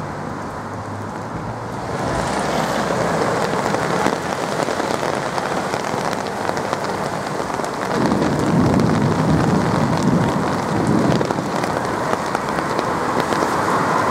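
Heavy rain falling and splashing on a wet street and pavement, a dense hiss full of small drop ticks that grows louder about two seconds in. A low rumble swells for about three seconds a little past the middle.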